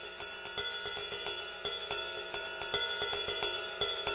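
Background music: a quiet intro with light percussion ticking at a steady pace over sustained high tones, slowly getting louder.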